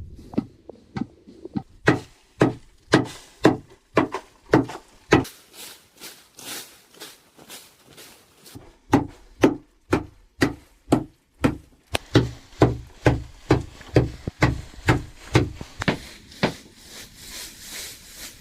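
Hand tool chopping with repeated sharp strikes, about two a second, in two runs with a stretch of lighter knocks between them.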